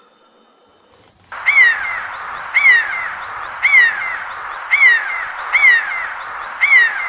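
Owl calling: six short calls, each falling in pitch, about one a second over a steady hiss, starting a little over a second in.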